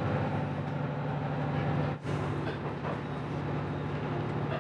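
Resort Shirakami 'Buna' HB-E300 hybrid train under way, heard from inside the passenger car: a steady low hum from the running train over a rushing rail and wheel noise. The sound dips briefly about two seconds in, then carries on as before.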